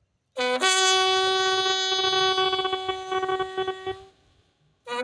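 Bugle sounding a ceremonial call: two short quick notes, low then high, lead into a long held note that fades out about four seconds in. The same opening returns near the end.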